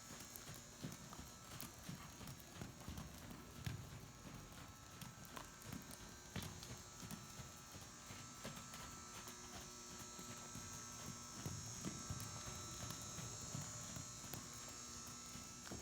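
Faint hoofbeats of a small mustang mare trotting, soft irregular thuds on soft footing, under a steady high hiss.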